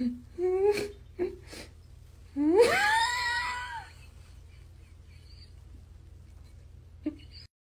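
Cat meowing: a few short chirping calls, then one long meow about two and a half seconds in that rises in pitch and falls away.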